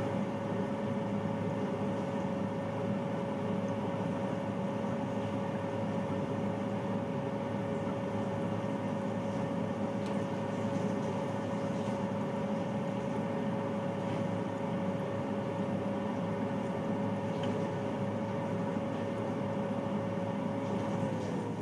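Bathroom water-heater boiler running: a steady mechanical drone with a held humming tone. Near the end the tone slides down in pitch.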